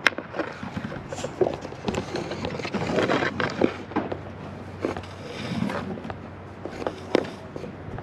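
Irregular scraping, clicking and knocking as a yellow fibreglass cable rod is pushed by hand up through a drilled hole in a wooden soffit.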